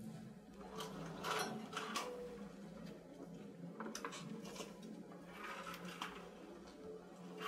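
Small plastic clicks and rattles from portable cassette players being handled and taken down from a wire mesh, coming in short clusters with pauses between, over a low steady hum.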